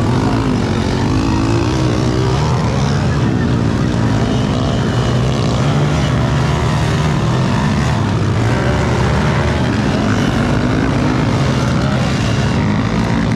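Several motocross dirt bikes racing on a dirt track, their engines revving up and falling back in repeated waves.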